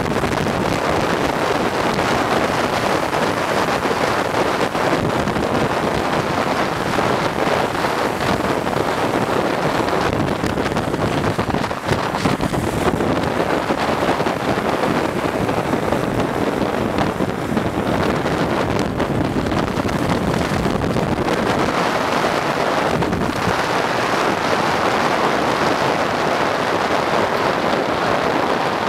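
Wind rushing over the microphone at downhill speed, over a steady road roar of wheels rolling on asphalt.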